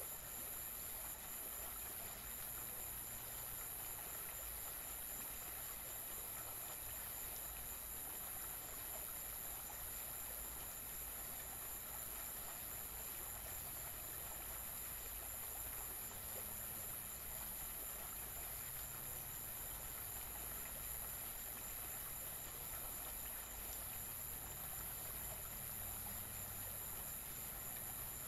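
Steady electronic noise: a bright high-pitched hiss with a thin steady whine, over a low hum, unchanging throughout.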